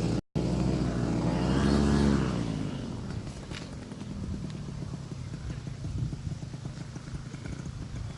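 Paramotor engine and propeller droning. It rises in pitch and loudness to a peak about two seconds in, then falls away and fades into a low, rough background of wind and engine noise.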